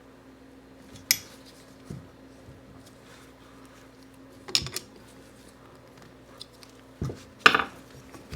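Metal tool clinking against the small metal parts of a Unimat SL lathe headstock as its M6 bolt is tightened: a handful of sharp clinks, the loudest near the end, over a steady low hum.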